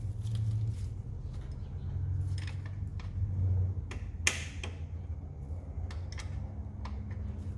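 Plastic electrical connectors on an engine wiring harness being unclipped and handled: scattered light clicks, with one sharper click about four seconds in, over a steady low hum.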